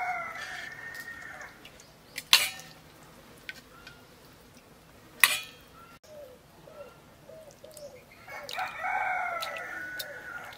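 A rooster crowing at the start and again near the end, with a few short soft calls in between. Two sharp metallic clinks, the loudest sounds, come about two and five seconds in, from a steel ladle striking the metal karahi as curry is served.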